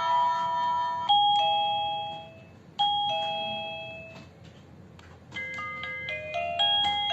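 Wireless doorbell receiver playing electronic chime tunes: the end of one melody, then two high-low ding-dong chimes about a second and a half apart, then a quicker multi-note tune starting a little past the middle.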